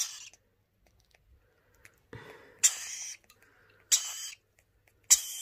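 Lorikeet chick giving short, harsh begging squawks during hand-feeding with rearing formula: four calls, roughly a second or so apart.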